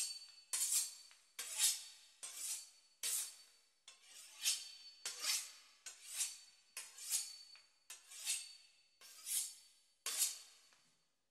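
Knife sawing back and forth through the crisp pastry crust of a beef Wellington: a steady run of short, crisp rasping strokes, about one and a half a second.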